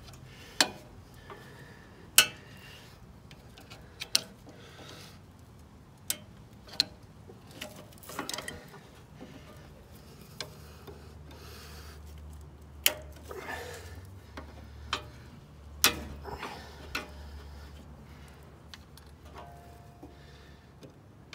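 A screwdriver and a slim steel tool prying and scraping at the top of a ride-on mower's front steering kingpin: irregular sharp metal clicks with scraping between them, the loudest about two seconds in.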